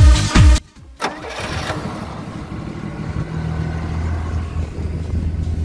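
Chevrolet 4.1-litre straight-six engine running and settling into a steady idle about two to three seconds in. Electronic music cuts off just before it.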